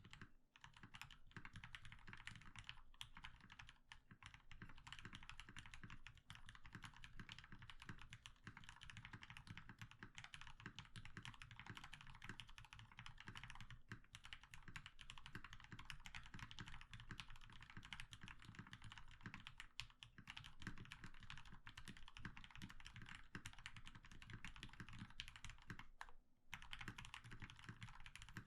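Continuous fast typing on a custom 60% mechanical keyboard: lubed 67.5g Gateron Black Ink switches on a carbon fibre plate in an ABS case dampened with butyl rubber and foam, giving a dense run of keystrokes with a brief pause near the end.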